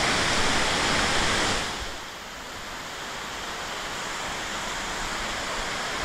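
Waterfall: a steady rush of falling water that is louder for the first second and a half, then drops to a lower, even level.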